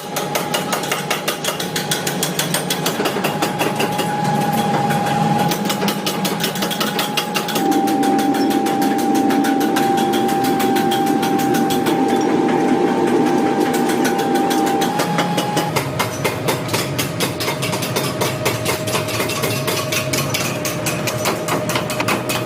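Metal being forged: rapid, even hammer blows several times a second over a steady machine hum. The hum drops to a lower pitch about 16 seconds in.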